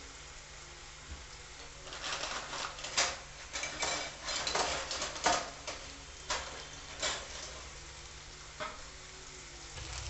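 Chopped onions, tomatoes and green chillies sizzling in hot oil in a frying pan, being lightly roasted. A steady hiss, with a dense run of sharp crackles for a few seconds about two seconds in, then a few single pops.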